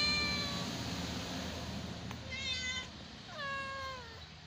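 Domestic cats meowing three times: one meow at the start and two more in the second half, the last one longer and sliding down in pitch.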